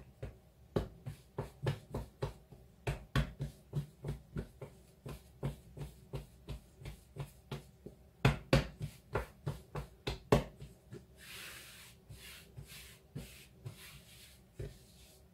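Hands patting and turning a ball of cheese scone dough on a floured worktop: a run of soft dull pats, about two or three a second. From about ten seconds in, this gives way to a faint rubbing as a hand spreads flour across the surface.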